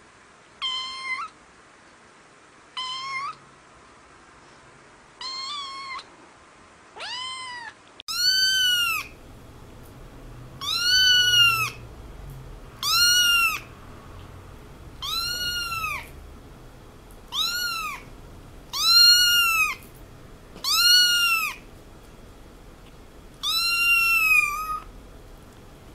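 Cat meows dubbed in from another recording: four short meows, then from about eight seconds in a different recording of eight high meows that rise and fall in pitch, roughly two seconds apart.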